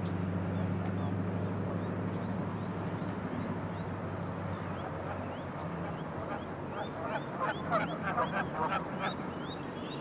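Waterbirds calling: a run of short, rising calls that starts about halfway through and grows faster and louder toward the end, over a steady low hum.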